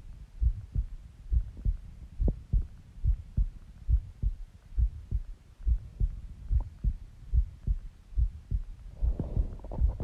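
Human heartbeat heard close up, a steady lub-dub of paired low thumps a little over once a second. Near the end a louder rushing, rumbling body sound joins in.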